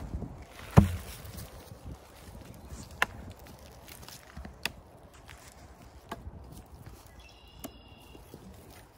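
A hookaroon's steel spike knocking into oak rounds as they are pulled and rolled over the ground: five sharp knocks about every second and a half, the first and loudest about a second in.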